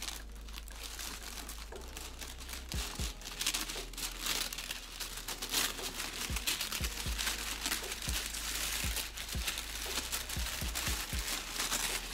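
White tissue paper crinkling and rustling as it is unfolded and lifted out of a gift box, with a few soft low thumps from the box being handled.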